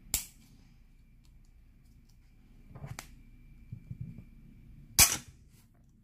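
Sharp clicks from a small Brennenstuhl LED camping lantern being handled: one at the start, a fainter one about three seconds in, and the loudest about five seconds in.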